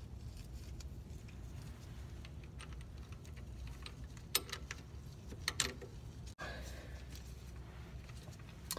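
Small metal clicks and clinks of CV joint bolts, serrated washers and a hex key being handled and started in by hand, with a few sharp ones about four and five and a half seconds in, over a faint steady low hum.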